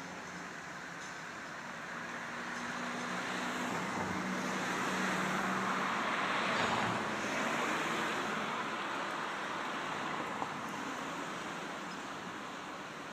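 A motor vehicle passing by: engine and tyre noise grows louder, peaks about six to seven seconds in, then fades away.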